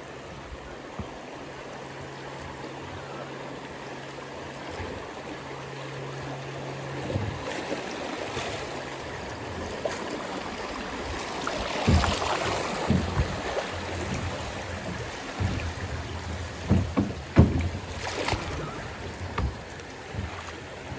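River water rushing along a rowed boat drifting downstream, with a few sharp knocks and splashes in the second half, the loudest about three-quarters of the way through.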